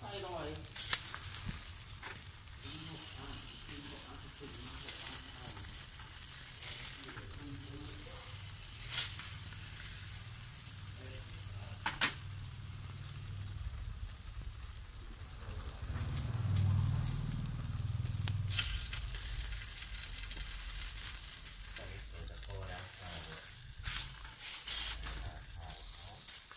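Chicken sizzling on a wire grill rack over hot charcoal: a steady hiss with a few sharp clicks, one of them as tongs turn the pieces about a second in. A low rumble swells about two-thirds of the way through.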